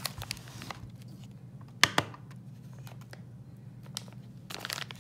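Light clicks and taps of small parts being handled on a bench, with one sharp click about two seconds in and a brief rustle of plastic bags near the end, over a steady low hum. The parts are brass RC portal housings in plastic bags being set on a digital kitchen scale.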